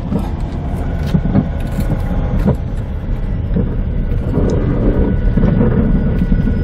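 Steady low road and tyre rumble of a Jeep in motion, heard from inside its cabin.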